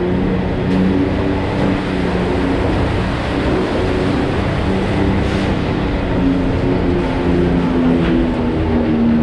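Side-by-side UTV engine running while driving, its note shifting up and down a little over a steady rush of tyre and gravel noise.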